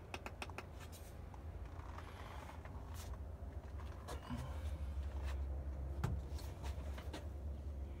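Scattered light clicks and rustles from someone moving among stored furniture and cardboard boxes, over a steady low rumble.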